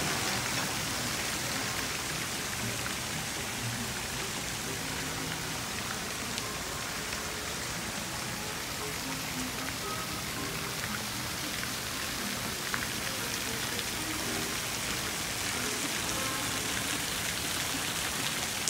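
Steady hiss of water falling and spattering on a wet splash-pad deck and shallow water, a little louder in the first second or two.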